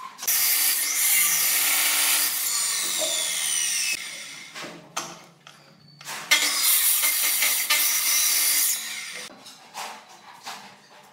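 Electric compound miter saw cutting through a wooden block twice, each run lasting about three seconds; after the first cut the blade's whine falls as the motor winds down. A few knocks of wood being handled follow near the end.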